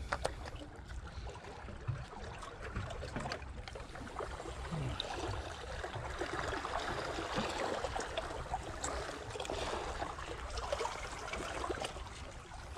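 Sea water lapping and trickling, with scattered small clicks and knocks.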